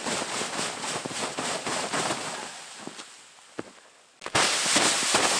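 Snow being swept by hand off a tent wall, sliding down the fabric with a crackling hiss that fades away after about three seconds. A little over four seconds in, a louder, rougher rush of snow noise starts suddenly.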